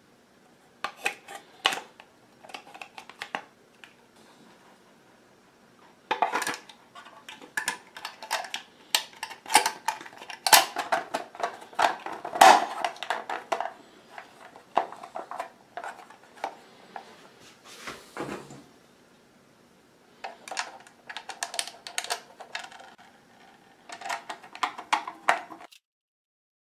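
Clicks and clatter of a mini paper shredder's plastic housing and parts being handled and fitted back together, in several bursts, stopping about a second before the end.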